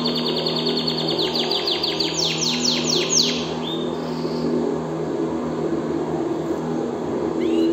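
Domestic canary singing: a fast trill of rapidly repeated high notes for about two seconds, then a handful of louder sweeping notes, after which the song breaks off about four seconds in. A couple of short rising notes return near the end, over a steady low hum.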